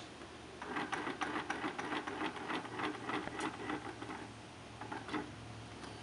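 Rapid small clicks and rattles from the worm-gear locking mechanism inside a wooden puzzle box as it is swirled clockwise upside down: a swinging weight drives the worm gear that draws the locking levers in to unlock it. About five or six clicks a second, stopping about four and a half seconds in, with a few more soon after.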